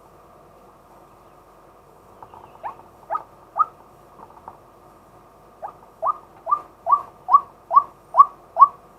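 Male white-breasted waterhen calling: a few short, upward-sliding notes, then a run of eight rising notes at about two a second that grow louder.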